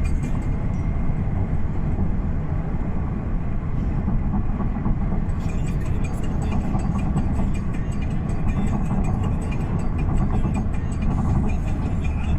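Steady engine rumble of a travelling vehicle, with a constant low drone and noise throughout.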